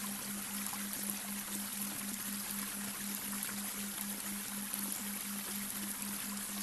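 Babbling brook, water running in a steady rush, mixed with a low steady tone that throbs about four times a second: a delta-wave binaural beat.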